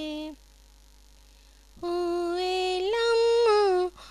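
A woman singing an Urdu naat unaccompanied, in long held notes. A note ends just after the start; after a pause of about a second and a half she sings a rising phrase of held notes, breaking off briefly near the end.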